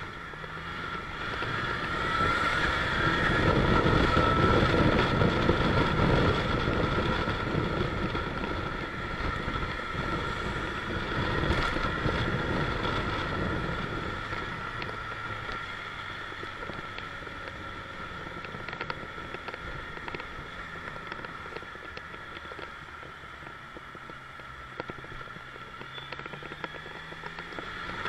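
Motorcycle engine and wind rush heard from the bike while it rides through town. The sound swells as the bike pulls away in the first few seconds, settles to a quieter cruise, and the engine note climbs again near the end as it accelerates.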